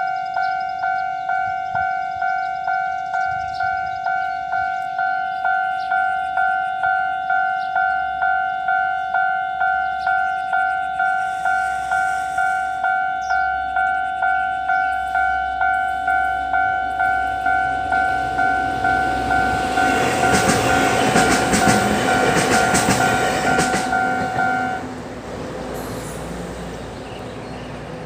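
Level-crossing warning bell ringing in a steady repeating two-tone strike, about one and a half strokes a second. A train comes up and passes about twenty seconds in, its wheels clattering over the rail joints. The bell stops about twenty-five seconds in, and a low steady rumble follows.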